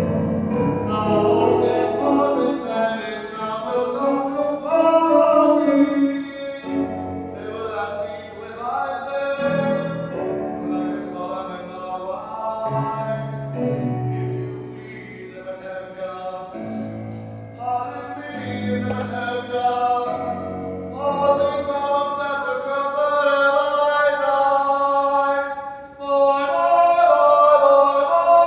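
A man singing a musical-theatre song over instrumental accompaniment.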